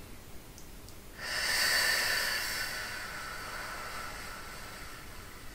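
A deep breath out, a breathy hiss that starts suddenly about a second in, is loudest at first, then tapers off over several seconds.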